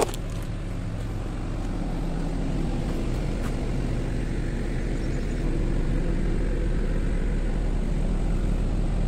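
Sany SY215C crawler excavator's diesel engine running steadily at low revs, growing louder as the open cab comes closer. A single sharp click at the very start.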